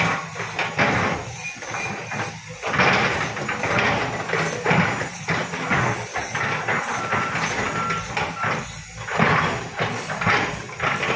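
Volvo crawler excavator's diesel engine running under load as its bucket works through loose rocks, with irregular scraping and clattering of stone in uneven surges.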